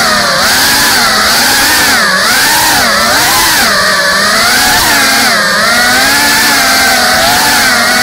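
GEPRC CineLog 35 cinewhoop FPV drone's motors and propellers whining loudly, the pitch swooping up and down every second or two as the throttle changes during fast flight.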